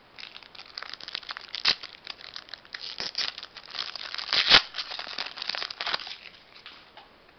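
Foil wrapper of a 2020 Topps Opening Day baseball card pack crinkling and tearing as it is pulled open by hand. A sharp, louder crackle comes about four and a half seconds in.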